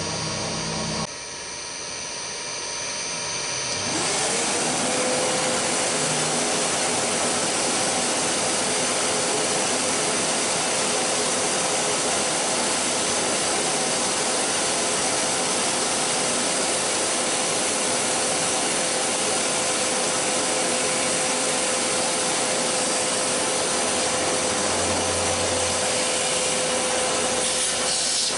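A machine hum stops about a second in. At about four seconds a shop vacuum starts, its motor whine rising and settling to a steady pitch, and it runs loudly on, drawing off the chips while a cast iron backing plate is drilled on a milling machine.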